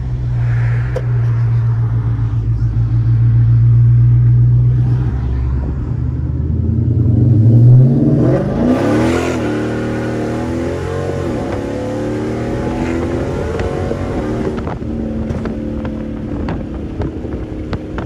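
Dodge Charger R/T's 5.7-litre Hemi V8, heard from inside the cabin. It holds a deep steady drone for the first several seconds. About eight seconds in the revs climb sharply, and the pitch rises and drops back through several quick upshifts of the eight-speed automatic before settling to a steady cruise.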